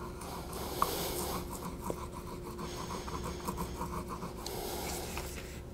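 Hot round tip of a handheld heat transfer tool rubbed over paper on a wooden board, a soft scratchy rustle that comes and goes in strokes, as laser-printer toner is transferred onto the wood.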